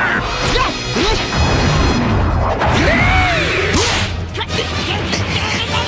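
Anime fight sound effects: sweeping whooshes and several sharp punch and kick impacts over a low rumble.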